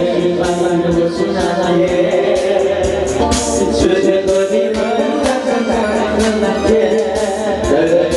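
Music: a song with singing over a steady drum beat.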